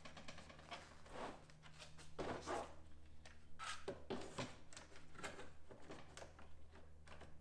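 Clamp being fitted and tightened on the edge of a folding table, with scattered light knocks, clicks and paper rustling from handling the covered panel, over a steady low hum.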